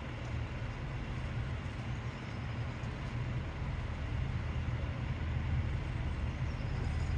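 Pacer diesel railbus idling at a standstill, a steady low diesel drone.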